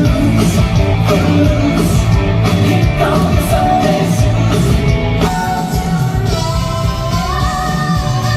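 Music with a singer and a steady drum beat, in a rock style.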